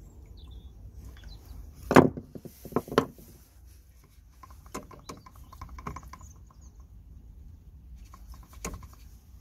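A few sharp knocks and clunks of parts and tools being handled: a loud knock about two seconds in, a quick pair about a second later, then lighter clicks and a single knock near the end.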